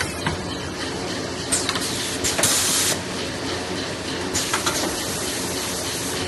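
Kitchen towel roll packing machine running: a steady mechanical hum with several sharp clicks, and a short burst of hiss about two and a half seconds in.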